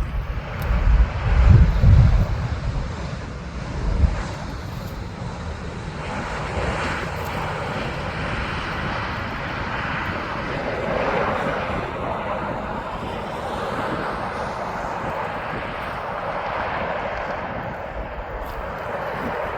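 Jet engines of a Transavia Boeing 737 on landing approach, a steady noise that swells and eases slowly as the airliner passes. Wind buffets the microphone in the first couple of seconds and again briefly about four seconds in.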